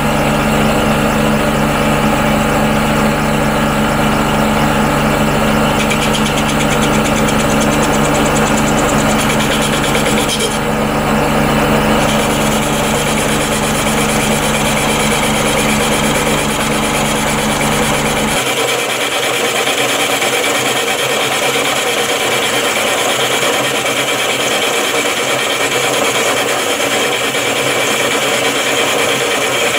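Small benchtop metal lathe running under cut, its motor humming steadily while a carbide-insert tool turns a large steel workpiece. About 18 seconds in the low hum drops out, leaving mainly the higher-pitched noise of the cut.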